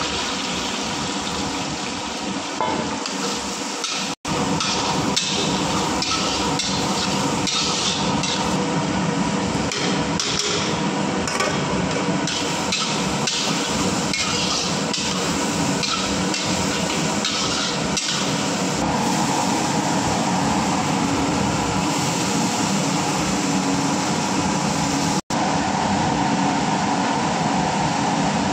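Long steel ladle knocking and scraping against an iron kadhai while chopped green chillies, onions and potatoes fry in hot oil, over a steady hiss of frying. The clanks are thickest in the first half.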